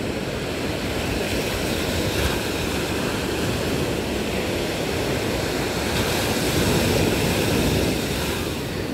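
Ocean waves breaking on a beach: a steady rushing wash of surf that swells to a louder break about seven seconds in.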